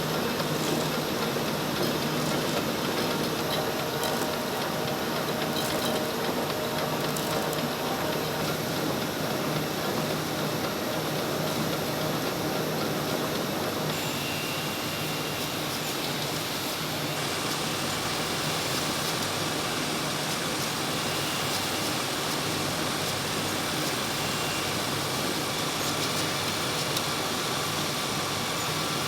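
Steady mechanical running noise of button-machining machines cutting plastic button blanks, with a faint high whine joining about halfway through.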